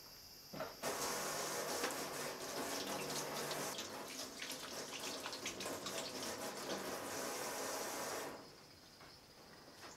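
Tap water running into a stainless-steel kitchen sink as a steady rush. It starts about a second in and stops abruptly a little after eight seconds.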